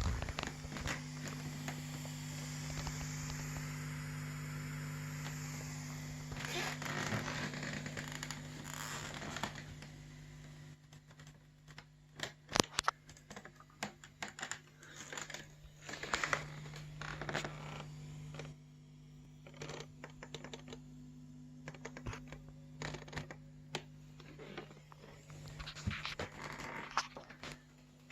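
Irregular scratching, scraping and clicking handling noises over a steady low hum, with the handling heavier in the first third.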